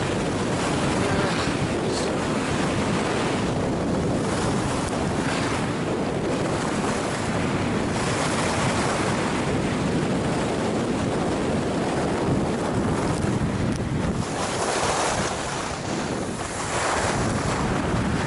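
Wind rushing over the action camera's microphone as a skier runs downhill at about 50 km/h, mixed with the skis hissing over packed snow. The rush comes in surges and eases a little near the end as the speed drops.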